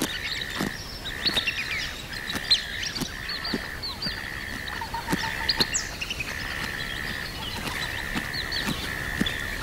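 Birds chirping and calling outdoors with many short notes, over a high steady buzz that repeats in stretches of under a second with short breaks, and a few faint knocks.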